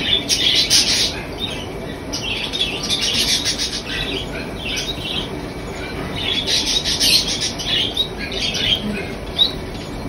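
Baby budgerigar chick making scratchy chirps in repeated bursts while being hand-fed formula from a spoon; these are a chick's feeding calls.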